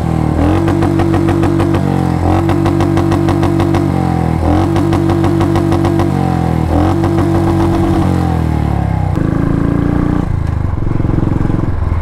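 Motorcycle engine running under load while riding off-road. The engine note holds steady, then drops and picks up again about every two seconds, and it grows rougher near the end.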